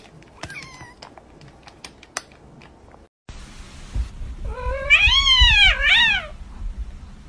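Foil snack bag crinkling faintly with a kitten moving inside it, with a brief faint kitten mew. Then, after a cut, a cat gives a loud, drawn-out meow in two rising-and-falling parts, over low bumping.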